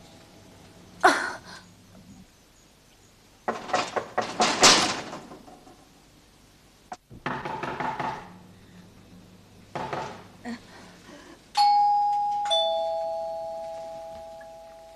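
Two-tone ding-dong door chime: a high note, then a lower one about a second later, both ringing out slowly. Before it come a few sharp thumps and rustling noises.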